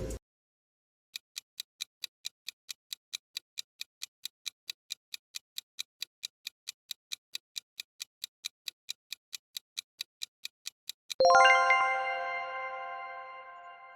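Countdown timer sound effect: sharp clock ticks, about four a second, for roughly ten seconds, then a bright ringing chime about eleven seconds in that slowly fades away.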